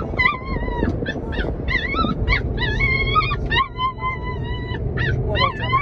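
Two young puppies whining and yelping over and over inside a plastic pet crate, a few cries drawn out into short howls about halfway through, over the low rumble of the car. They are crying at being shut in the crate.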